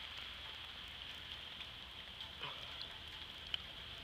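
Light rain falling onto standing floodwater on a street, a steady soft hiss with a few sharper single drop sounds.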